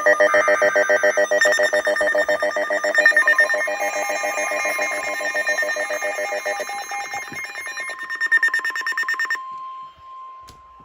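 Emergency alert on NOAA Weather Radio: a loud, rapidly pulsing electronic alarm with many overtones. About four seconds in, the steady 1050 Hz warning tone comes in under it. The pulsing alarm cuts off about nine seconds in, leaving the single tone just before a warning message is read.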